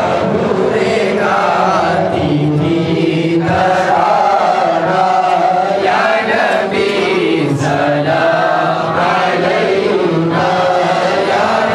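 A group of men chanting a devotional recitation together, many voices in unison without a break.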